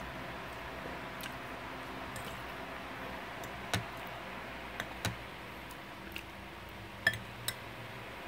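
Metal fork clinking against a dinner plate, about six short sharp clinks between about four and seven and a half seconds in, over a steady background hiss.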